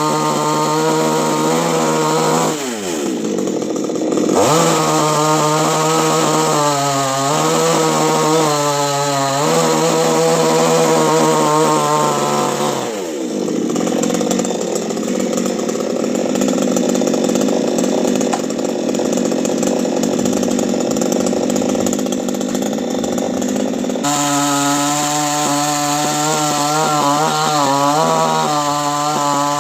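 Chainsaw running at high revs as a coconut tree is cut, its pitch dipping and recovering several times, with sharp drops in revs about two and a half and thirteen seconds in. From about thirteen seconds until near the end the clean engine note gives way to a rougher, noisier sound before the steady high-revving note returns.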